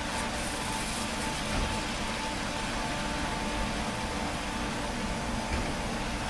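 Automatic rollover car wash running, its rotating brushes scrubbing a car: a steady rush of brushes and water over the whir of the gantry's motors, with a steady humming tone.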